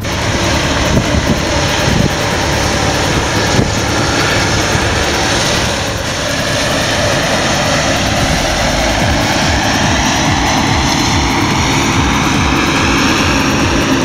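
Claas Lexion combine harvester working in rapeseed: a loud, steady drone of the diesel engine and threshing machinery. A high whine in it falls slightly in pitch near the end.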